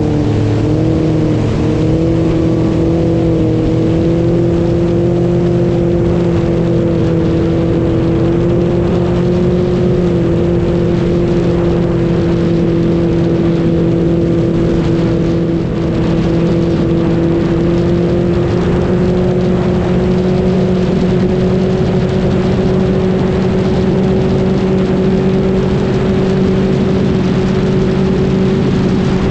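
A motor vehicle's engine running steadily at an even drone, its pitch creeping slowly upward, as at a steady cruise.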